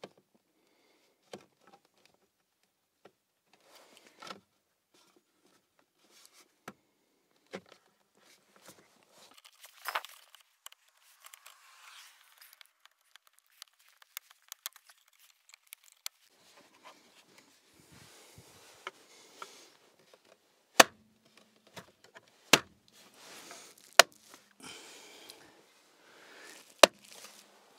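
A new plastic steering column cowling on a BMW F30 3 Series being handled and pressed into place around the steering column, giving scattered small plastic clicks and rustling. Four sharp, loud snaps come in the second half as the cowling is pushed home.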